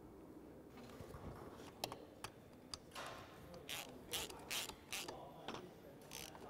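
Socket ratchet worked in a series of short strokes, each a quick burst of clicking, as the moped's exhaust fixings are tightened. A few light clicks come first, then about seven strokes over the last few seconds.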